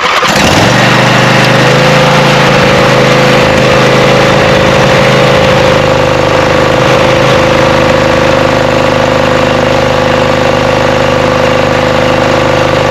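Briggs & Stratton 24 hp V-twin engine on a Craftsman lawn tractor, just started and running at a steady speed. It is misfiring and running on only one cylinder, which the owner suspects is a vacuum leak or a blocked carburetor jet on one side.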